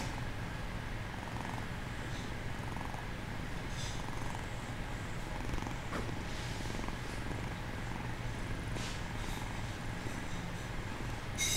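Bengal kitten purring steadily, a continuous low rumble, while it is stroked.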